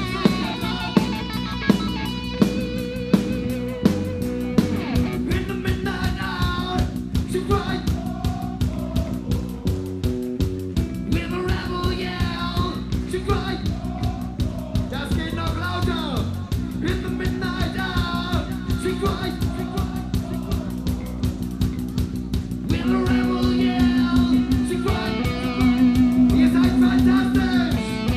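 A rock band playing live on electric guitars and drums, with singing over it; the band gets louder near the end.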